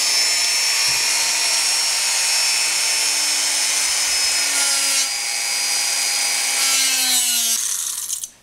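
Rotary tool with an abrasive cut-off disc cutting through a brass tube: a loud, steady high whine over the hiss of cutting. Near the end the motor's pitch falls as it winds down, then the sound stops abruptly.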